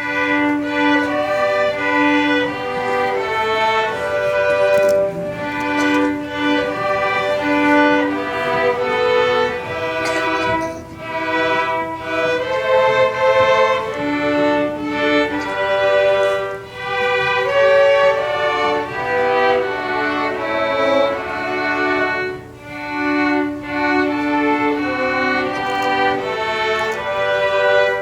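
Violin music: a bowed melody of held and moving notes that runs without a break.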